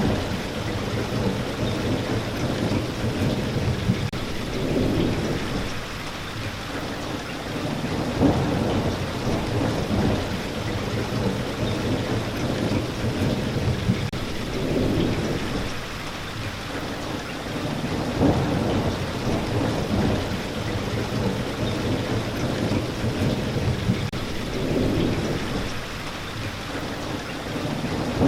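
Steady rain falling, with low rolling thunder rumbling underneath that swells and fades every few seconds.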